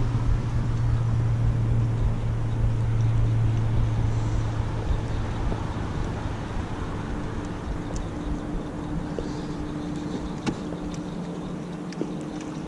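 A boat's motor humming steadily, with water and wind noise underneath. The low hum fades down about ten seconds in, while a higher steady hum joins from about seven seconds.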